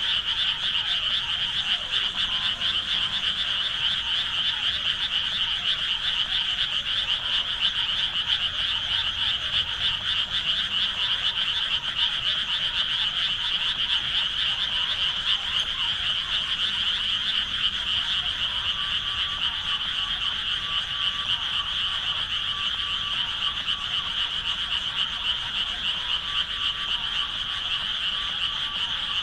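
Dense chorus of many frogs calling at once, a continuous high-pitched trilling mass with no gaps. A faint steady tone joins in about two-thirds of the way through.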